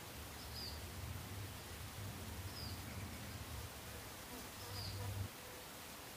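Faint short high chirps repeating about every two seconds over a steady low hum; the hum cuts off suddenly about five seconds in.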